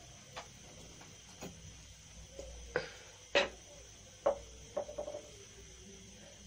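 A few scattered light knocks and clicks over faint room hiss, the loudest about three and a half seconds in and a quick run of three about five seconds in.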